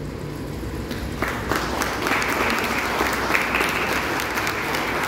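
Audience applauding, the clapping starting about a second in and quickly building to steady clapping.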